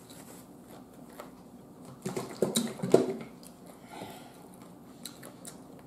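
Light taps, clicks and rustles of food and containers being handled at a table, with a brief low voice sound, like a hum, about two seconds in.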